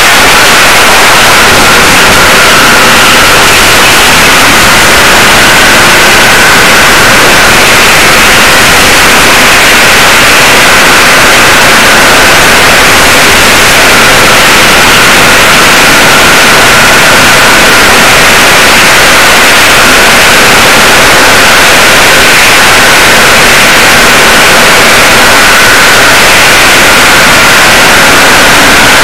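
Loud, steady static-like hiss with no distinct sound events, and a faint steady whine underneath.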